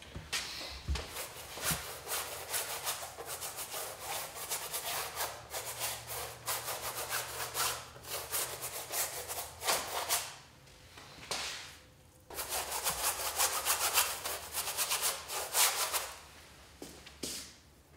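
Paintbrush scrubbing paint onto a stretched linen canvas in quick back-and-forth strokes, in several runs broken by short pauses.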